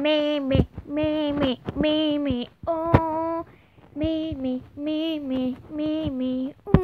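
A girl singing a simple tune without clear words, in short held notes of about half a second each with brief breaks between them.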